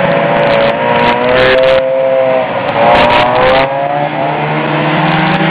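Two vintage two-stroke snowmobiles, one an Arctic Cat Jag, passing close by one after the other. Each engine's pitch climbs as it approaches and drops as it goes past.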